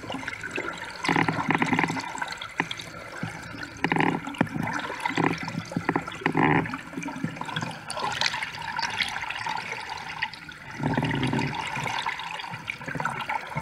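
Water rushing and gurgling around an underwater camera carried along by a moving boat, in uneven surges.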